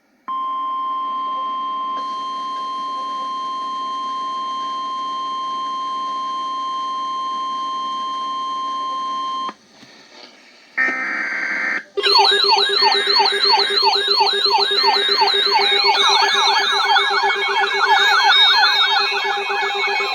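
Electronic emergency alert tones: a steady, unbroken alarm tone holds for about nine seconds and cuts off. After a short burst of noise, layered warbling tones start about twelve seconds in, rising and falling rapidly over one another like a siren.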